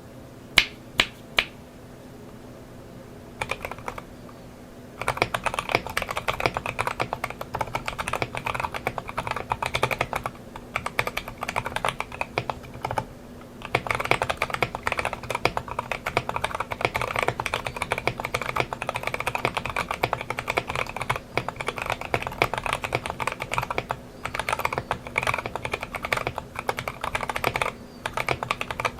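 Typing on a mechanical keyboard fitted with Lelelab Y2K tactile MX-style switches: a few separate sharp clicks at first, then fast continuous keystrokes with brief pauses.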